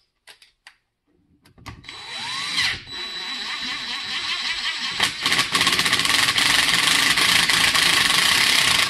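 Cordless DeWalt impact driver turning a long bolt that presses the gearbox shaft out of a tool eye motor housing. It starts about one and a half seconds in, eases off briefly near three and five seconds, then runs loudest and steadily until it stops at the end.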